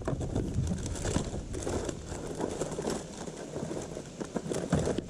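Irregular rustling, crinkling and light clicks of fishing tackle being handled, jigs and plastic packaging rummaged through by hand.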